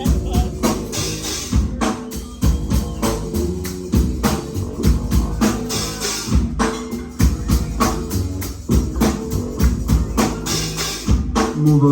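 Live band playing an instrumental passage with no vocals: a drum kit keeping a busy, driving beat over steady bass notes.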